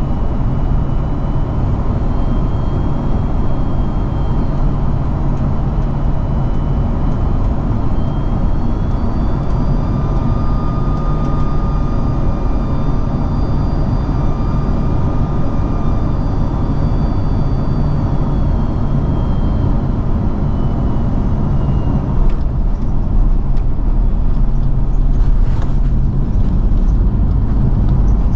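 Airbus A330-200 cabin noise on final approach: steady engine and airflow rush with faint whining engine tones that drift up and down. About 22 seconds in the main wheels touch down, with short knocks and a heavier rumble as the plane rolls out on the runway.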